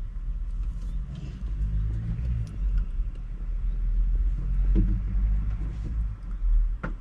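Motorhome on the move: a steady low engine and road rumble, with a sharp click near the end.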